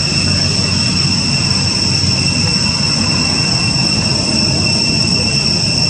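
Steady, high-pitched insect chorus droning without a break, two even shrill tones over a hiss, with a low rumble underneath.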